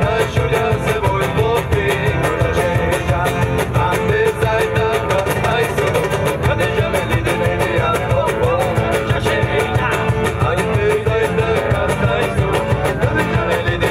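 Live Romani band music amplified through PA speakers: two acoustic guitars strummed over a steady cajón beat.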